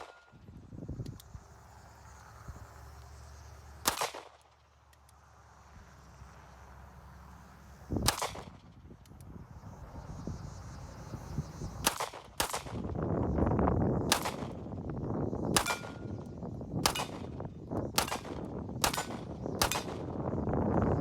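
CZ P01 Omega 9mm pistol firing about ten shots, slow and spaced a few seconds apart at first, then coming faster at about one a second. Wind buffets the microphone, louder through the second half.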